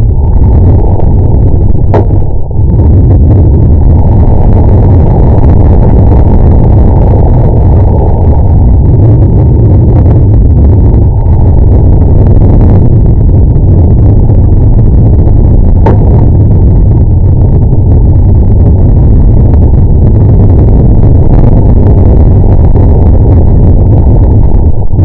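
Wind rushing over a rocket's onboard camera microphone as the rocket falls, loud enough to overload it, with sharp clicks about 2 seconds in and about 16 seconds in. The drogue parachute is trailing, but the main parachute failed to eject, so the rocket is coming down fast.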